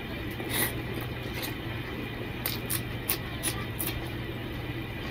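Chewing and lip-smacking while eating rice and curry by hand: a few short wet smacks and clicks, one about half a second in and a cluster a little past the middle. Under them the steady hum of a ceiling fan.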